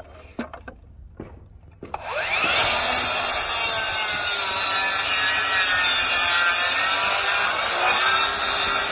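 Makita cordless sliding miter saw spinning up about two seconds in, its motor whine rising fast, then running steadily as the blade cuts through a wooden board. A few light handling clicks come before it starts.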